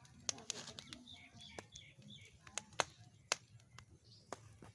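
Small wood fire crackling under roasting maize cobs, with about half a dozen sharp, irregular pops. Birds chirp in the background in the first half.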